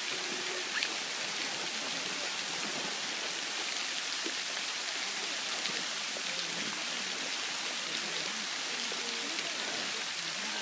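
Fountain jet spraying and its water falling back onto a shallow wading pool: a steady, rain-like hiss of falling water.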